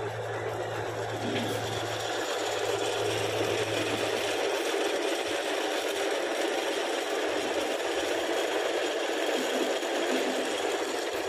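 Home-built barrel-reaming rig running as a reamer rod is fed through a steel air-rifle barrel tube: a steady mechanical running noise, with a low hum underneath that stops about four and a half seconds in.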